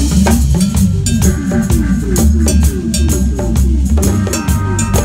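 Live reggae band playing, with a heavy bass line under a regular drum kit beat and short repeated notes over it.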